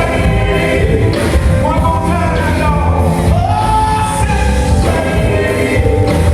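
Gospel music: a voice singing held, gliding notes over a loud band with a heavy, steady bass.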